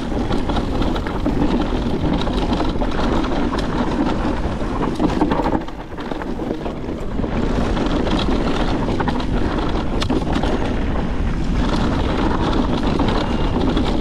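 Mountain bike riding fast downhill on a rocky dirt trail: wind rushing over the microphone, with tyres crunching and the bike rattling over rocks in many short knocks. The noise dips briefly about six seconds in.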